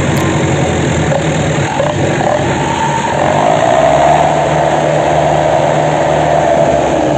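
Landini Atlantis DT85 tractor's diesel engine running steadily, getting a little louder about three seconds in.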